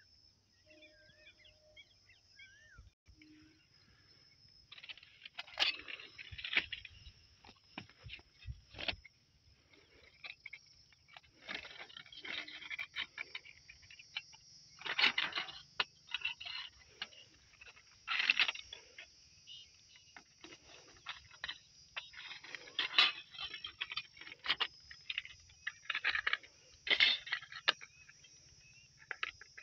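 Irregular crackling, crunching and rustling as the pieces of a crushed mobile phone and flattened foil are picked up and handled among railway ballast stones.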